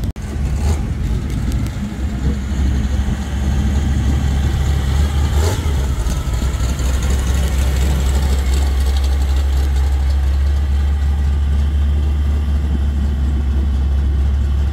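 Classic pickup truck's engine running at low speed as the truck rolls slowly past, a steady low rumble throughout.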